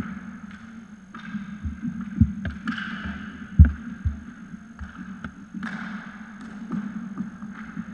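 Inline skate wheels rolling and scraping on a sports hall floor close by, with scattered knocks and thumps. The loudest is a low thump about three and a half seconds in.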